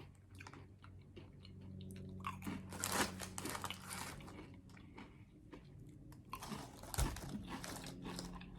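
A person biting and chewing Croky Bolognese-flavoured potato chips: a run of irregular, crisp crunches.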